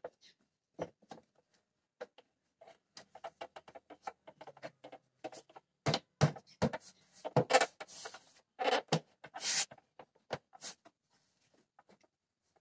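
Hands handling and seating a Ford Figo's plastic air filter housing and intake hose: a string of plastic clicks, knocks and short scrapes. They are busiest and loudest in the middle few seconds.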